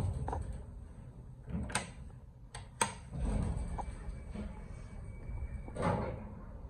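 Single-speed sliding door of an Otis service elevator moving, with sharp clicks and knocks.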